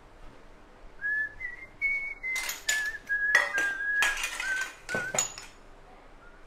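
A person whistling a simple tune in short held notes, starting about a second in, with several sharp clinks and knocks of dishes and utensils being handled.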